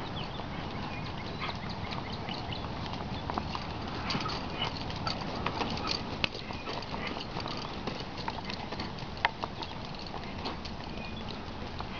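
Ridden horse walking on a dirt arena: soft hoofbeats with scattered sharp clicks over a steady background hiss.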